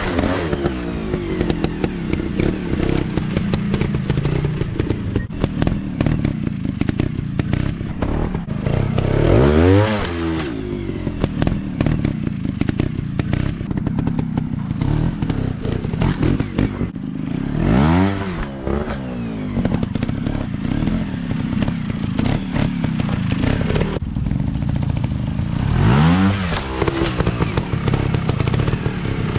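Dirt bike engines running, one revving up and dropping back roughly every eight seconds over a steady engine drone, with scattered knocks and clatter.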